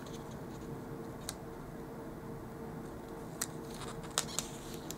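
Fingers handling a paper sticker and pressing it onto a spiral planner page: a few faint sharp ticks of paper and fingernails, one about a second in and three more close together near the end, over a steady low hum.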